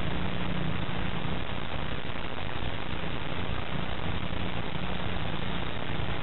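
Steady hiss with a low hum underneath: the background noise of an old black-and-white television recording's soundtrack.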